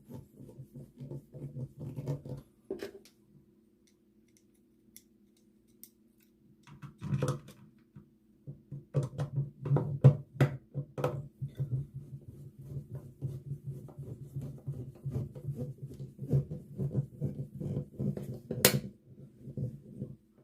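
A screwdriver scraping and clicking as it drives screws into a wall switch's cover plate, in quick runs of small sharp ticks with a short pause in the middle and one louder click near the end, over a steady low hum.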